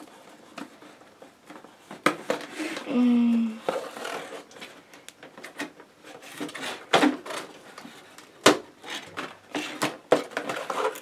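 Scissors snipping the plastic ties that hold a toy to its cardboard box insert, with the cardboard being handled: irregular sharp snips and clicks with rustling in between.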